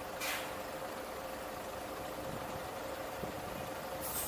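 Car driving in city traffic: a steady engine and road hum with a faint constant tone, and two brief hissing whooshes, one just after the start and one near the end.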